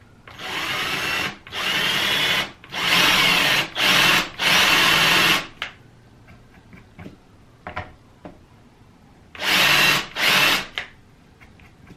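Cordless drill spinning its bit against a laptop's small Phillips screw in short bursts, the bit slipping in the head and grinding the cross into a rounded, stripped surface. About five bursts come in quick succession, then a pause with a few light clicks, then two more bursts near the end.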